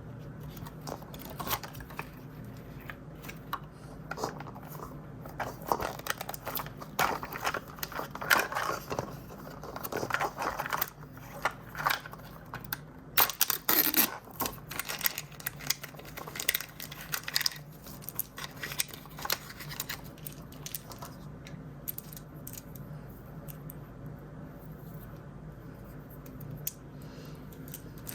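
Plastic blind-bag packaging crinkled and torn open by hand, with irregular crackles and small clicks of handling. It is busiest and loudest in the middle, then thins to occasional rustles over a low steady hum.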